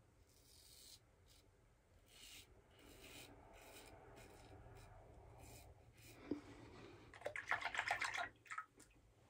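Open-comb safety razor scraping stubble through shaving lather in short strokes on a south-to-north, against-the-grain pass. The strokes are faint at first, with a louder run of quick strokes about seven seconds in.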